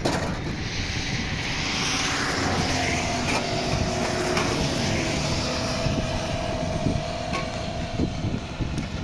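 A motor vehicle going by on wet asphalt: tyre hiss and engine hum swelling and then fading after about six seconds.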